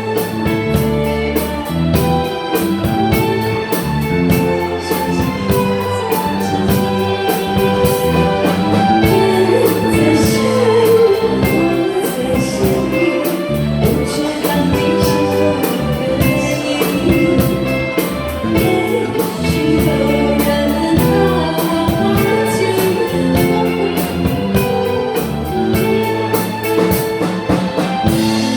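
Backing music of a pop ballad with a steady beat, as in an instrumental break of the song.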